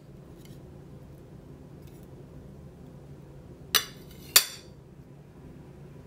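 Metal table knife clinking against a ceramic plate twice, about two-thirds of a second apart, each clink ringing briefly.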